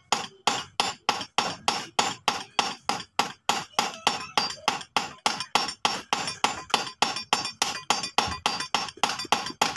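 Hand hammer peening rivets on a Yamaha Sniper 150 clutch housing braced on hard metal: a steady run of sharp metallic clinks, about four a second, each with a brief ring. The rivets being set hold the clutch housing's dampers.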